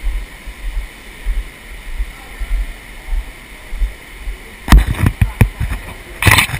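Steady rush of an underground stream in a limestone cave, with a few sharp knocks about five seconds in and a short, louder clatter near the end.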